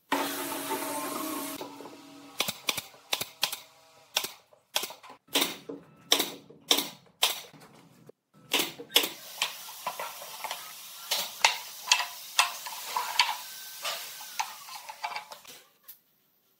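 A brief whir of a small motor, then a series of sharp knocks and taps, irregularly spaced at about one or two a second, over a steady hiss.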